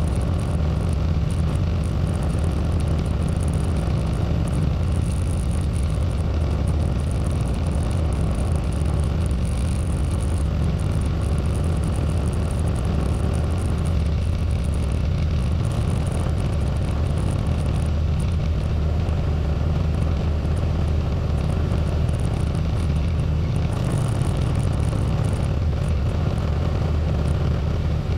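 Tractor engine running steadily with a low, even hum, heard close up from a camera mounted on the tractor as it plows snow.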